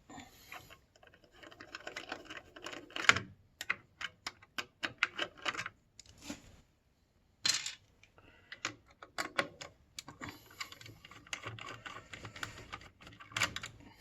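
Irregular light clicks, taps and clatter of small hard plastic and metal parts being handled while working on a desktop PC, with a short pause about halfway through.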